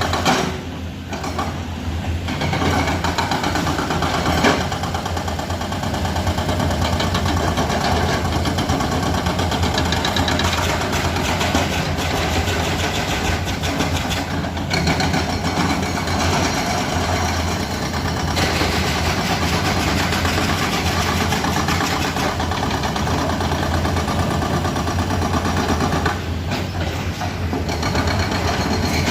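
Excavator's diesel engine running steadily, with a strong low drone, dipping briefly a few times.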